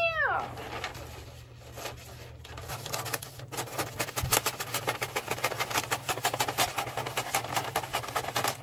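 Wrapping paper crinkling and rustling as it is handled and unrolled, a dense run of quick crackles from about three seconds in. A brief falling tone sounds at the very start.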